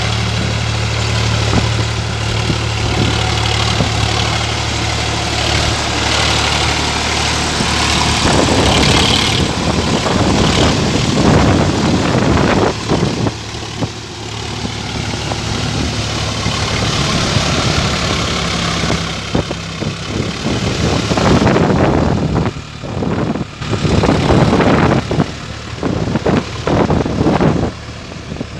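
Sonalika tractor's diesel engine running: a steady hum for the first several seconds, then rougher and uneven, with surges and drops in loudness toward the end.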